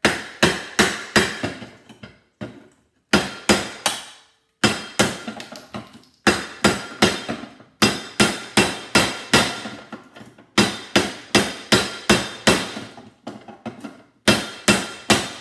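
Claw hammer striking the steel outer shell of a vacuum cleaner motor clamped in a bench vise, hammering it loose. The blows come about three a second in runs of several, with short pauses between the runs, and each blow has a metallic ring.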